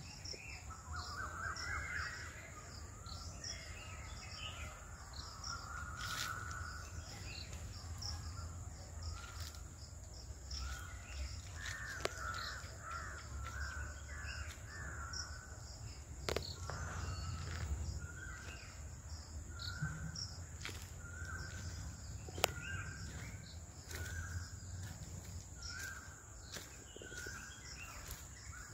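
Crows cawing repeatedly, short harsh calls coming about once a second, with a few sharp clicks among them.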